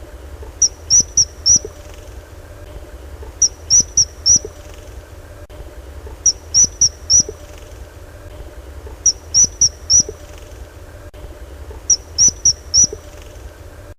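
An animal calling in five groups of four short, high-pitched chirps, one group about every three seconds, over a steady low hum.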